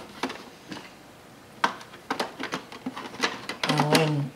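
Plastic clicks and knocks from hands working the waste ink pad box on the underside of an Epson XP-205 inkjet printer, pushing it along to release it, the sharpest click about a second and a half in. A brief hum from a man's voice near the end.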